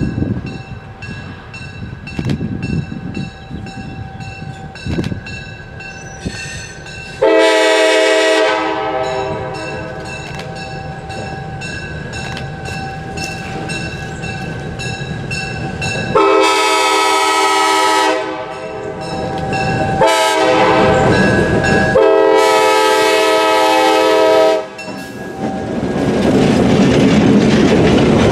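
GP10 diesel locomotive's air horn sounding the grade-crossing signal: long, long, short, long, over a low engine rumble. Near the end the train's rumble grows louder as it comes close.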